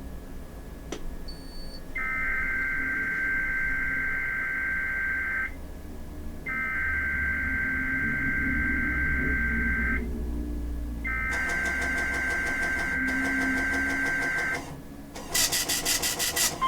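NOAA Weather Radio SAME header: three bursts of warbling two-tone data, each about three and a half seconds long with a pause of about a second between them, marking the start of a Required Weekly Test. Near the end a loud, rapidly pulsing buzz cuts in for about a second.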